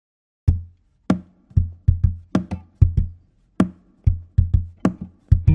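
Music: a bare percussion beat of about a dozen sharp drum hits, each with a deep thump, in an uneven rhythm.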